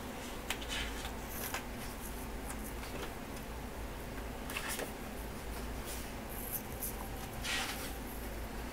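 Pages of a large photobook being turned and handled: several short, soft paper rustles over a quiet room with a faint low hum.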